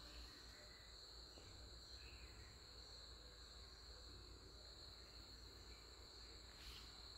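Near silence: faint room tone with a steady high-pitched tone and a faint click near the end.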